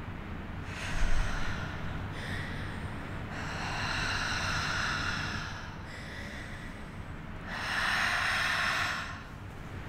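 A person breathing heavily and slowly, about five long breaths in and out over a low steady hum.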